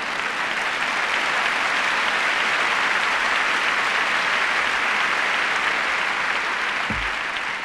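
Large lecture audience applauding: a dense, even clapping that builds over the first couple of seconds, holds steady, and begins to die down near the end.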